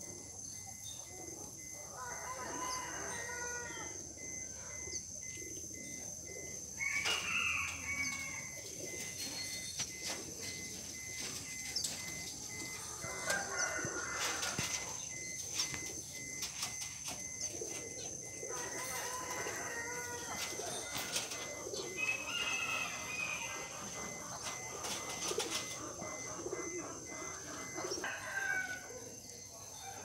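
A flock of pigeons on a corrugated metal roof: bursts of wing flapping and sharp clicks, with short bird calls every few seconds and a steady high whine throughout.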